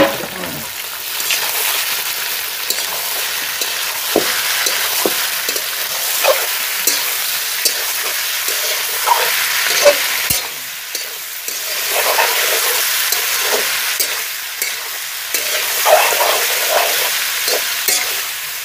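Duck meat sizzling in hot oil in a black iron kadai, just added and searing. A spatula stirs it, with frequent short scrapes and knocks against the pan.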